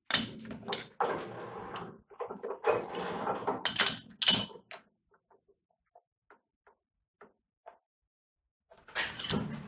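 A metal ring blank clinking against the jaws of a lathe's three-jaw chuck, with scraping and rasping as it is seated and clamped. The clinks and rasping run through the first four and a half seconds, then only a few faint ticks, and more clinks near the end.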